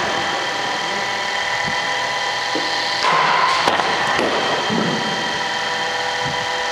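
Steady whine of a cricket bowling machine's motors and spinning wheels, with several fixed tones, growing louder about three seconds in. A few short knocks follow, among them the bat striking the ball.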